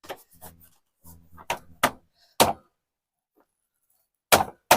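Small wooden toolbox, loaded with hand tools, knocking and thudding as it is worked into a tight fit in the truck: a string of sharp knocks with quiet gaps, the loudest about halfway through and two close together near the end.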